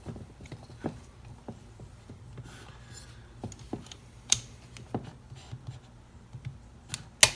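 Light scattered clicks and taps of a wrench on the chainsaw's cylinder bolts, then a sharp click near the end as a preset click-type torque wrench breaks over at 15 N·m.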